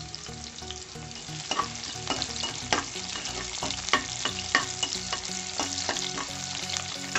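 Sliced onions and a green chilli sizzling in oil and ghee in a metal pan, with a steady hiss. A ladle stirring them clicks and scrapes against the pan every second or so.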